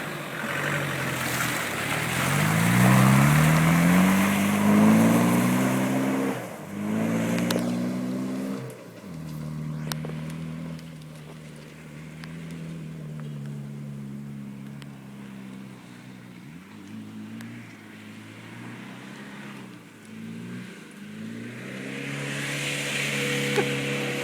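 Land Rover Discovery 300Tdi four-cylinder turbodiesel revving hard under load. Its pitch climbs over the first few seconds, drops sharply and climbs again, then holds at steadier revs with brief dips and rises again near the end.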